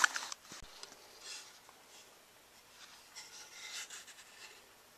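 Faint rasping strokes of a hand file working the pickaroon's head: a short patch about a second in and a longer run of strokes from about three to four and a half seconds in. A light knock comes about half a second in.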